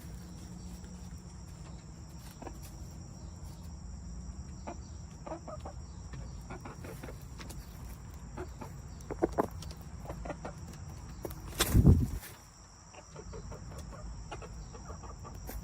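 Backyard chickens clucking softly in short scattered calls, with a loud thump about twelve seconds in.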